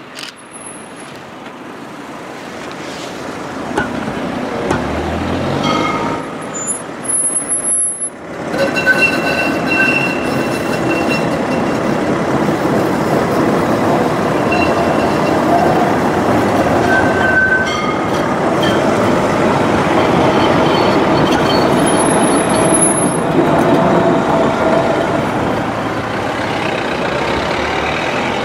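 Electric street tram passing close by: a steady rumble of wheels on rails that builds over the first few seconds, with faint high whining tones coming and going over it.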